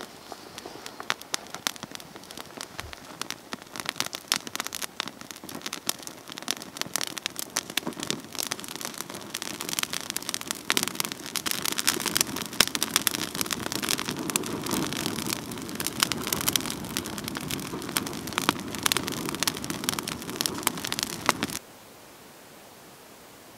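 Dry leaves and twigs catching fire: crackling and popping that grows denser and louder as flames take hold, under a rising rush of burning. It cuts off abruptly near the end, leaving a faint steady hiss.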